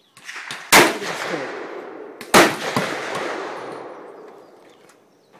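Two gunshots about a second and a half apart, each trailing off in a long echo across the range.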